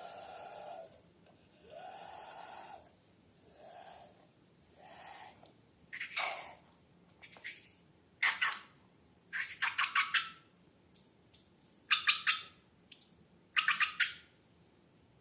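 Slime being squished and worked by hand: a few soft smooth squelches, then clusters of quick wet clicks and pops from about the middle on.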